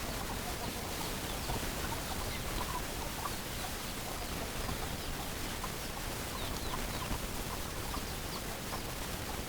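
Hens clucking in short, scattered calls over a steady background hiss.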